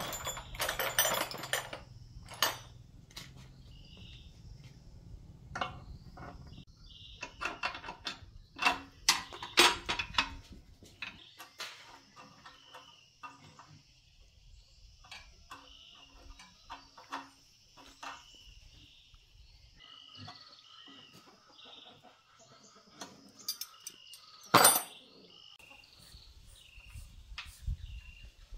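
Metal hand tools and parts clinking and knocking as they are handled and packed into a toolbox, in clusters of sharp clicks with one loud clank near the end. A faint high chirping repeats in the background throughout.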